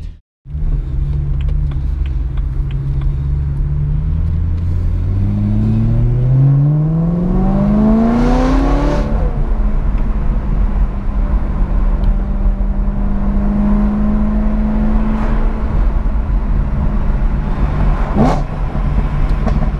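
BMW M3 E92's V8 engine, fitted with a modified rear silencer and a pre-cat delete, heard from inside the cabin. It runs steadily, then climbs in revs under acceleration from about four seconds in, drops back near the nine-second mark, and holds a steady cruising note.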